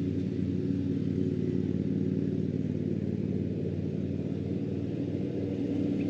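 A motor or engine running steadily at an even pitch, a low hum that does not change.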